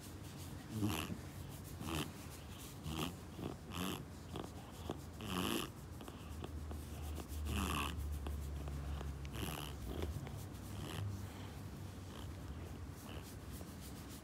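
A black-and-white domestic cat purring steadily while being scratched under the chin, with short rustles from the fingers moving through its fur every second or so.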